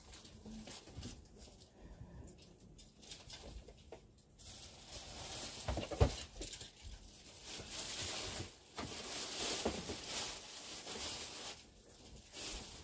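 Rustling of fabric and things being handled while clothes are put on, louder in the second half, with one sharp knock about six seconds in.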